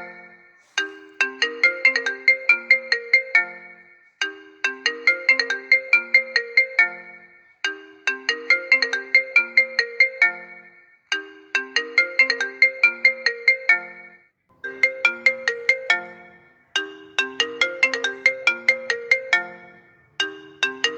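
iPhone ringtone playing: a melody of short, quickly fading struck notes, repeated in phrases about three seconds long with a brief gap between each. The last few phrases are shorter.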